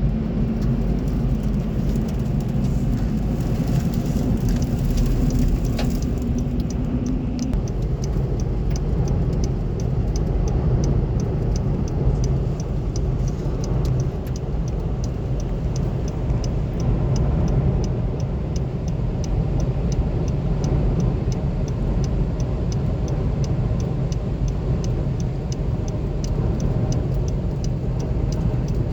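Strong wind buffeting the microphone with a heavy low rumble. A low steady hum stops about seven seconds in, and a quick even ticking, about three a second, runs through the rest.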